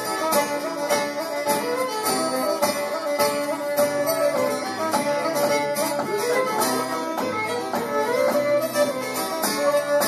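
Fiddle playing a quick Irish traditional tune over steadily strummed acoustic guitar.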